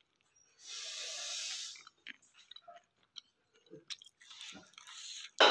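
Mouth sounds of a man whose mouth is burning from a whole raw green chilli: a loud hiss of breath lasting about a second, then small sips, gulps and clicks as he drinks from a cup.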